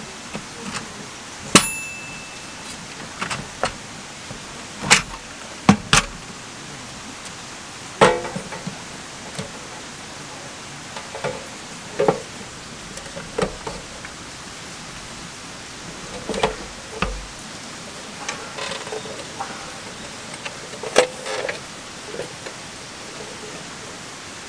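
Clicks and knocks of a Maxbutane Fold Range folding portable gas stove being folded shut: metal pot supports and panels snapping down and clacking closed into its case, irregularly every second or two over a steady hiss. One click early on is followed by a brief ringing ding.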